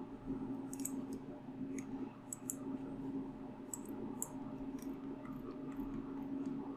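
Computer mouse clicking, scattered single and paired clicks every second or so, over a steady low hum.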